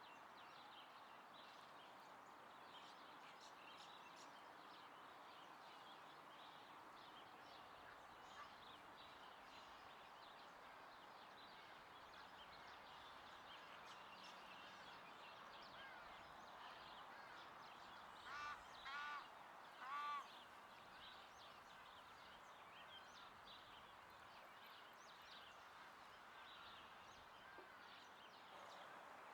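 Faint open-air ambience: a steady soft hiss with scattered small bird chirps, and a bird giving three short calls about two-thirds of the way through.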